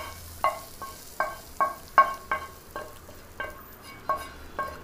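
Metal spoon knocking and scraping against a metal cooking pan as the fried onion-tomato masala is scooped out, about a dozen quick strokes, each ringing briefly.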